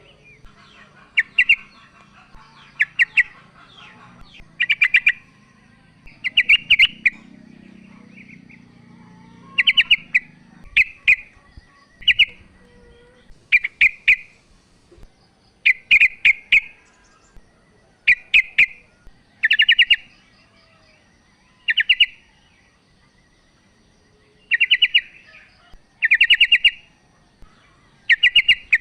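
Female sooty-headed bulbul (trucuk) calling to a male: short chattering bursts of quick notes, repeated every second or two.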